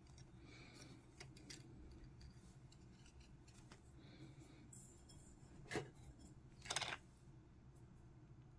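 Near silence with faint handling noise from fingers on a plastic miniature base and a paintbrush working on the model. A sharp click comes a little past the middle, and a short scrape about a second later.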